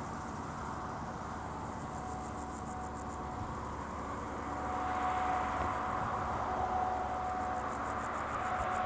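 Electric warning bell of an AŽD 71 level-crossing signal ringing as a rapid, high trill while the lights flash. A road vehicle's noise grows from about halfway through.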